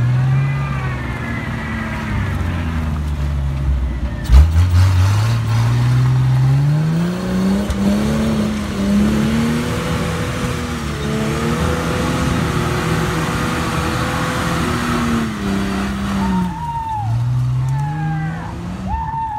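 Jeep rock crawler's engine run at high revs on a steep trail climb, to clear out carbon: a loud thump about four seconds in, then the revs climb steeply, hold high for several seconds and drop back near the end.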